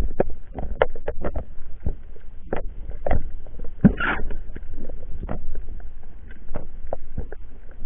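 Underwater sound through a diver's camera: irregular sharp clicks and knocks, a few a second and uneven in strength, with a short hiss about four seconds in.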